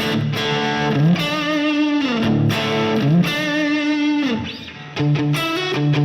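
Electric guitar played through a crunch tone (light overdrive), sustained chords with wavering, vibrato-like notes. About four and a half seconds in it briefly drops away, then comes back with short rhythmic chords.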